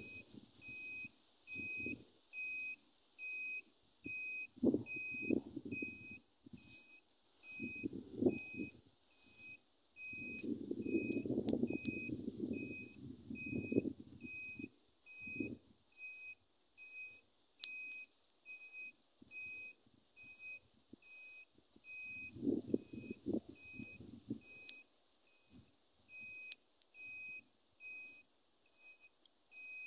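Handheld GILDA RADAR long-range locator beeping: short identical high beeps at an even pace of about two a second. Low rustling comes and goes under the beeps.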